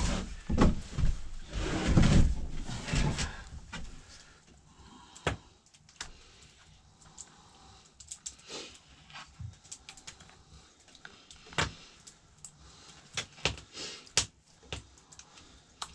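Rustling and clattering for the first few seconds, then scattered light clicks and taps of a spoon against a dish as meat filling is spooned into a pie plate.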